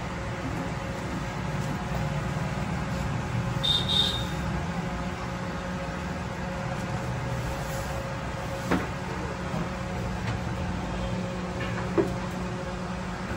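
Steady low mechanical hum with a faint steady tone, broken by a brief high squeak about four seconds in and a couple of short knocks later on.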